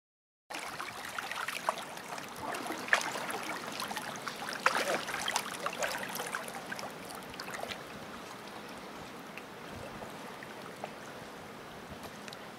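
Water splashing and trickling as a crowd of rainbow trout churn the surface of a pond, with many small sharp splashes in the first half that settle into a steadier trickle.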